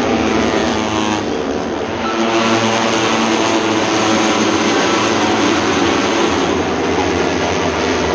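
Racing motorcycles' engines at high revs as a group of bikes passes on the circuit, several engines overlapping with pitch shifting slowly.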